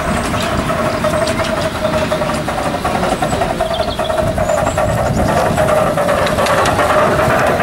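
Miniature steam locomotive running past with its train of passenger carriages, getting louder as it comes closer. A steady pitched tone runs underneath, with rapid clicks from the wheels on the track.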